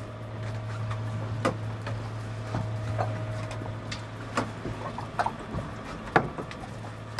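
Fishing reels being wound in, with scattered clicks and knocks over a steady low hum.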